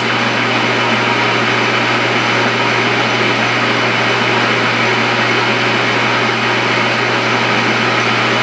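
Small metal lathe running steadily, turning down a valve spool between chuck and live centre with a light cut; an even motor and gear hum throughout.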